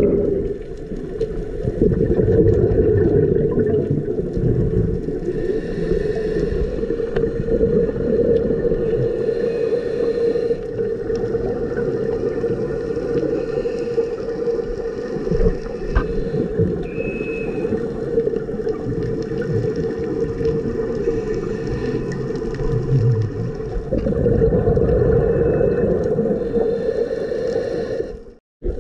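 Steady muffled underwater drone with low rumble, as picked up by an action camera in its waterproof housing while scuba diving. It dips briefly to silence near the end.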